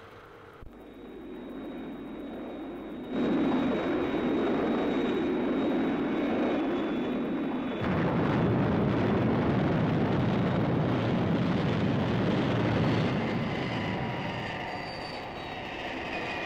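Jet engine sound effect for Thunderbird 1 descending and landing vertically: a loud, steady rushing noise that starts suddenly about three seconds in and runs on. Before it comes a quieter hiss with a thin, steady high whine.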